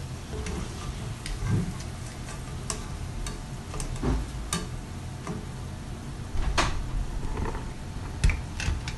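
Wire spider skimmer clicking and scraping against the rim of a stone-coated frying pan as fried pakoras are lifted and drained from the oil. The clicks come at irregular times, with two louder knocks in the second half, over a steady low hum.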